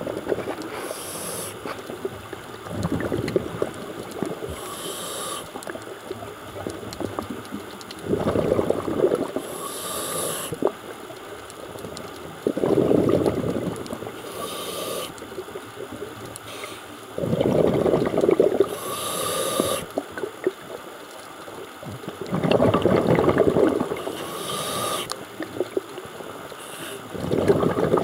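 Scuba diver breathing through a regulator underwater, recorded from below the surface. Each breath is a short hiss of the inhale followed by a longer, louder bubbling rumble of the exhaled bubbles, repeating about every four to five seconds.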